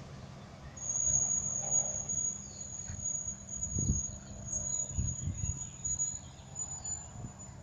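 An insect's steady high-pitched trill starts about a second in and keeps going, with a low rumble underneath that swells a few times.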